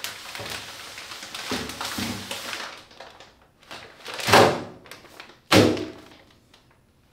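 A perforated metal drum insert being fitted into a plastic-bag-lined dust collector drum: the plastic bag crinkles and metal scrapes, then two loud thunks about a second apart as the parts are pushed down into the drum.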